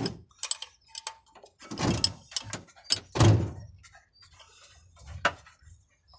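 Metal knocks and thumps of work on a truck's diesel fuel system, with two heavier thumps about two and three seconds in and a sharp click about five seconds in.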